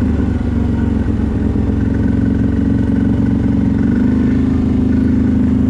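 CFMoto 1000 ATV's V-twin engine running steadily while riding, its pitch holding fairly even.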